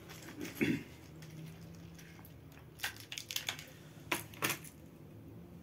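Clear plastic tackle box of fishing lures being handled and opened: scattered sharp clicks and clatters of the hard plastic box and the lures and hooks inside, in small clusters about half a second, three seconds and four seconds in.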